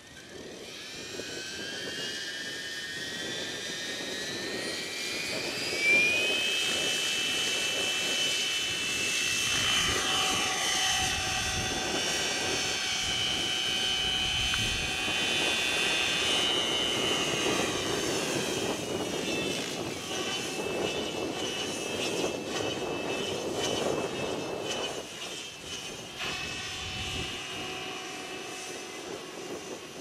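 Align T-Rex 760 electric RC helicopter spooling up. Its motor and drive whine rises in pitch over the first six seconds or so, then holds steady as it lifts off and flies. Wind rumbles on the microphone underneath.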